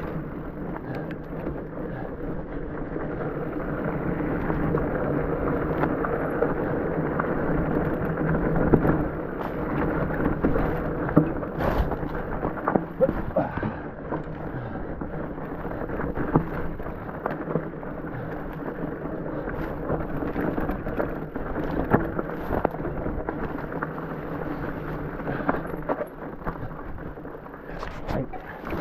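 Rigid fat bike rolling down a rocky dirt trail: a continuous rumble of the wide tyres on dirt and rock, broken by frequent short knocks and rattles as the bike hits bumps.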